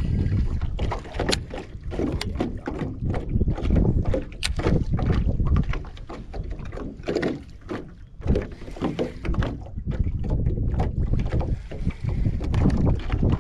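Wind rumbling on the microphone and water lapping at a small aluminium jon boat, with scattered sharp clicks and knocks from the rod and baitcasting reel being handled.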